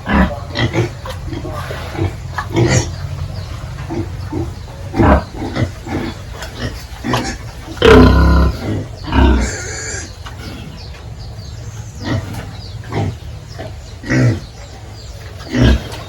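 Domestic pigs grunting, with many short, irregular grunts and a louder, longer call about eight seconds in, over a steady low hum.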